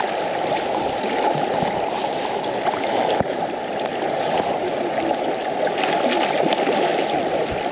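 Steady rush of fast-flowing river water close to the microphone.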